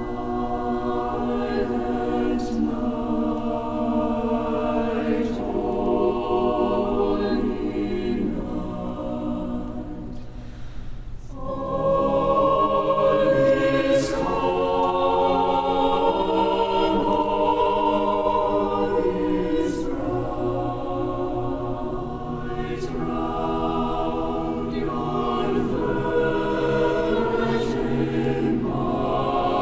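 A choir singing a Baroque choral piece in sustained chords. It thins out briefly about ten seconds in, then swells louder.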